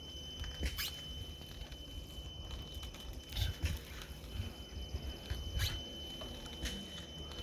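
Tall bamboo swing creaking in short squeaks every couple of seconds as it swings, over wind rumbling on the microphone and a faint steady high tone.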